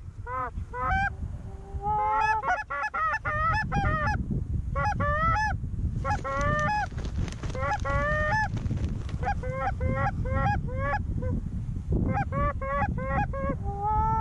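Canada goose honks and clucks in rapid runs, with brief pauses between the runs, over a low rumble of wind on the microphone.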